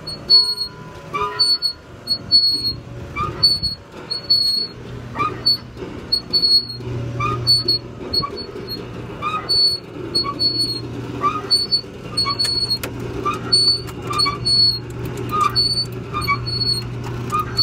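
A short high chirp repeats about every two-thirds of a second over a steady low hum. In the last few seconds come sharp clicks from the plastic dashboard buttons of a train kiddie ride being pressed.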